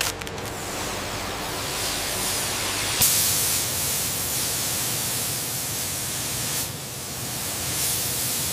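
Air-fed paint spray gun hissing steadily, starting suddenly about three seconds in and dipping briefly once near the end. Before it, a softer steady noise.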